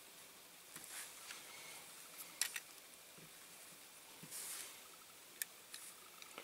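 Faint handling noises from small diecast model-car parts being fitted by hand: a few sharp clicks and light ticks, with a brief soft scrape about halfway through.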